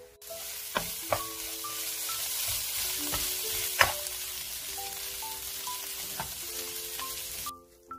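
Seasoned dried namul greens sizzling as they are stir-fried in a nonstick frying pan, with a wooden spatula knocking against the pan a few times. The sizzle stops shortly before the end. Background music with single sustained notes plays throughout.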